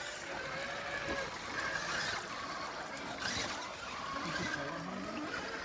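Stream water trickling and splashing over rocks, with the faint rising and falling whine of a radio-controlled crawler's electric motor.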